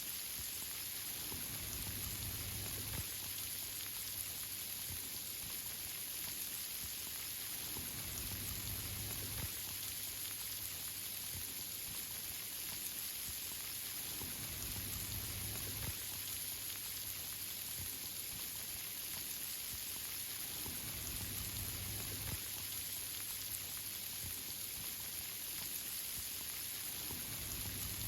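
Rain falling steadily on the leaves of treetops, an even, unbroken hiss of many drops.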